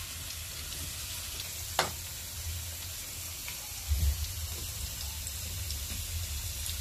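Sweet potato sticks deep-frying in hot oil in a frying pan: a steady sizzle, with a sharp tap about two seconds in.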